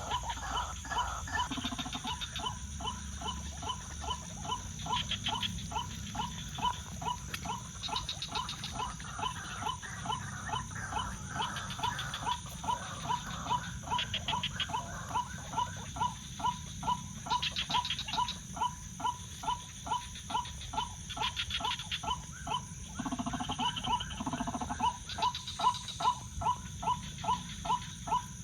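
White-breasted waterhen calling, a monotonous run of short croaking notes at about two a second. Night insects chirp in short bursts every couple of seconds over a steady high insect drone.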